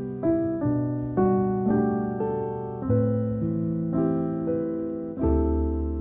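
Background piano music: soft chords struck one after another, each ringing and fading before the next.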